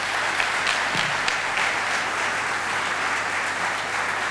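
An audience applauding: steady, dense clapping from many people.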